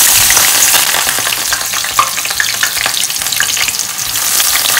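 Brinjal (eggplant) pieces deep-frying in hot oil in a wok: loud, dense sizzling and crackling, swelling again about four seconds in as more pieces are lowered in.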